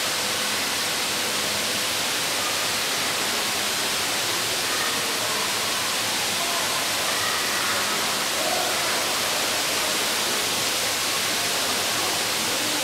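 Steady, even hiss of background noise in an indoor exhibit hall, with faint distant voices now and then.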